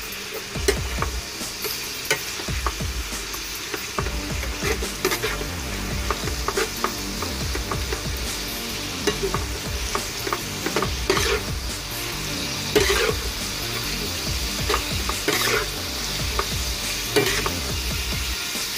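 Beef and bitter melon stir-frying in a nonstick frying pan: a steady sizzle of hot oil, with a metal spatula scraping and clacking against the pan at irregular moments as the food is turned.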